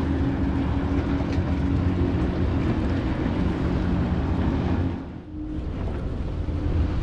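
Motorboat engine running steadily as it passes, a low drone with a steady hum over a rumble; the sound dips briefly about five seconds in.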